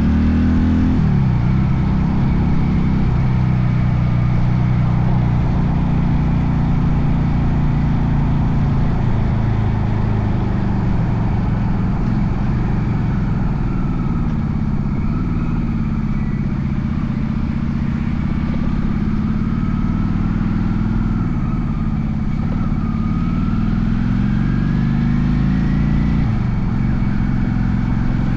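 Honda Shadow VLX 400 V-twin engine running while the motorcycle is ridden, its note dropping sharply about a second in, rising and falling through the middle, then climbing steadily and dropping again near the end as the rider shifts gear and changes speed.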